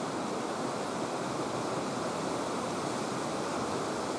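Steady rushing of the Hozu River, swollen after rain.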